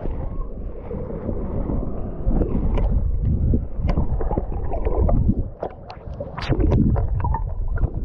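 Shallow sea water sloshing and splashing around knee-deep legs in small waves, with many sharp splashes and wind rumbling on the microphone.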